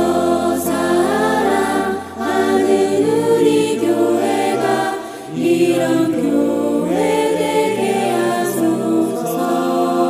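Background music: a choir singing a Christian worship song with sustained accompaniment.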